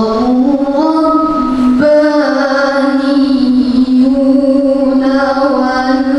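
A young woman's voice reciting the Quran in melodic tilawah style, holding long drawn-out notes with ornamented turns, amplified through a handheld microphone.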